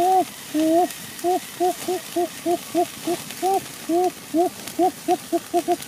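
A man hooting through pursed lips: a quick run of short, low notes, about three to four a second, each rising and falling in pitch.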